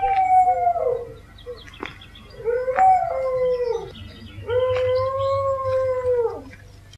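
Dogs howling: three long howls, each held at a steady pitch and falling off at the end, with a second dog's wavering howl overlapping the first.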